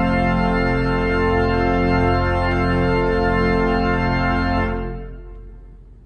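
Church organ playing a full, sustained closing chord with a deep bass. The chord is released about four and a half seconds in, and the sound fades away in the room's reverberation.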